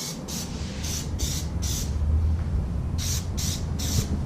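Aerosol can of Plasti Dip sprayed in short hissing bursts, two or three a second, with a pause of about a second midway, laying on a second coat. A low rumble runs underneath.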